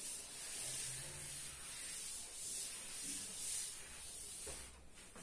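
Chalkboard duster being rubbed over a chalkboard to erase chalk, a steady scratchy hiss that swells and eases with each back-and-forth stroke and stops shortly before the end.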